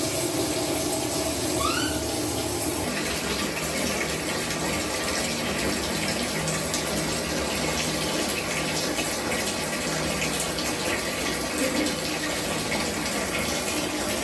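Water running from a bathroom tap into a plastic basin: a steady rushing splash as the basin fills.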